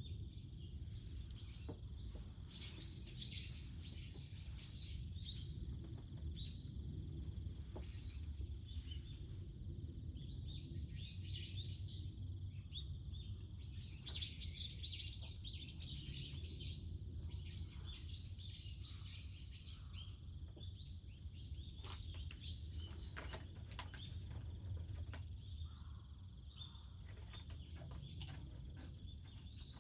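Small birds chirping and calling in bursts over a steady low rumble, with scattered sharp crackles.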